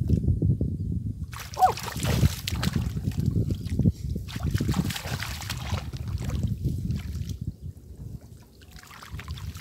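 Water sloshing and splashing in irregular bursts, as from hands and bodies working in shallow water, with a short rising squeak about one and a half seconds in.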